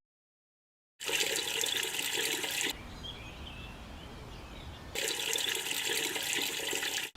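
Running water in two loud bursts, each starting and stopping sharply, with faint bird chirps in the quieter gap between them.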